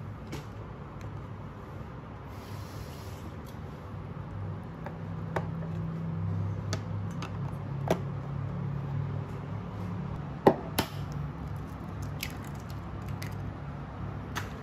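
A plastic food container being handled and its lid pressed on: a few sharp clicks and taps, the loudest about ten seconds in, over a low steady hum.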